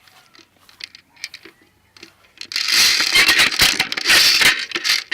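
Airsoft gun firing a rapid burst of about two seconds, a dense mechanical rattle, after a few scattered faint clicks.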